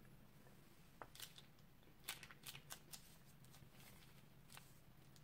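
Slime being squeezed out of a piping bag, giving faint sticky clicks and small pops: a few about a second in and a quick run of them between two and three seconds in.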